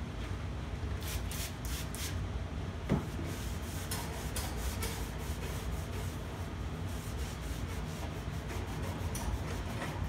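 Paper towel wiping over the dusty sheet-metal cabinet and grille of a 1960s Torcan box fan in quick repeated rubbing strokes, with a single knock about three seconds in over a steady low hum.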